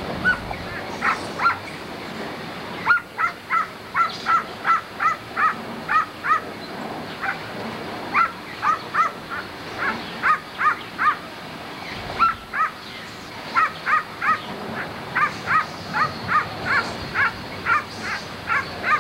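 An animal giving short, high calls over and over, about three a second, in long runs with a brief break about two-thirds of the way through.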